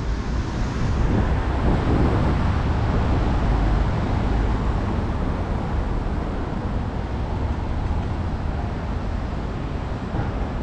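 Steady road-traffic noise with a low rumble, swelling about two seconds in as a vehicle passes, then easing a little.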